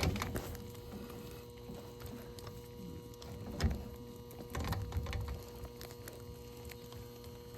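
Scattered knocks and clicks of copper pipe and fittings being handled and worked, over a steady low hum.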